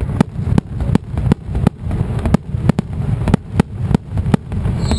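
Mascletà: firecrackers going off in an even rhythm of about three loud bangs a second.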